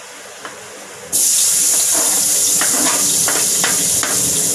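Chopped onions dropping into hot oil in a steel wok and starting to sizzle: a loud, steady hiss that comes on suddenly about a second in. A few knife taps and scrapes on the chopping board sound over it as more pieces are pushed into the pan.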